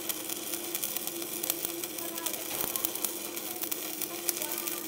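Stick (MMA) welding arc of an Arc200 inverter welder burning a 3.2 mm electrode at the end of a very long electrode cable (about 170 m): a steady crackling sizzle full of sharp pops, with a steady hum underneath.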